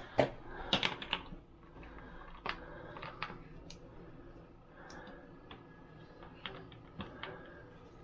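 Irregular clicks and knocks of hands working parts and tools on a dishwasher door: a sharp knock just after the start, a quick cluster about a second in, then scattered lighter clicks.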